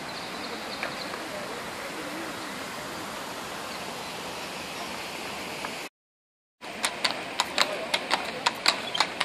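Steady rush of splashing fountain water, then after a brief cut-out, a horse's hooves clip-clopping on stone paving, about three strikes a second, as it pulls a carriage past.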